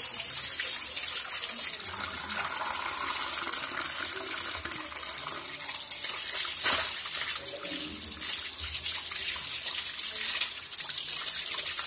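Water running from a tap and splashing over hands as they rinse raw offal, a steady hiss of running water.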